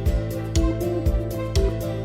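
Background music: a light, steady beat with plucked, guitar-like melody notes over sustained tones.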